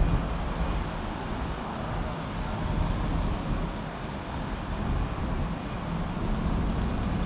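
Steady outdoor street noise: distant road traffic under a low, uneven rumble of wind on the microphone.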